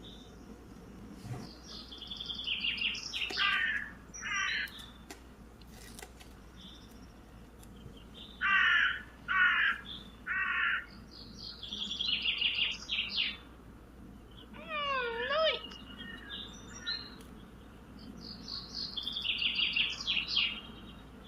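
Birds calling: short twittering and chirping phrases, three loud harsh calls in a row near the middle, and a sliding call a little after them.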